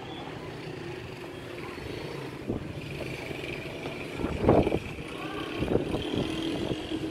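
A male tortoise mating, making short loud sounds about four and a half seconds in and a thin held tone near the end, over a steady low background rumble.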